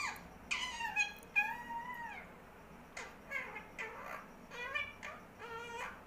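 Indian ringneck parakeet calling: a long wavering call about half a second in, then a run of short calls in the second half.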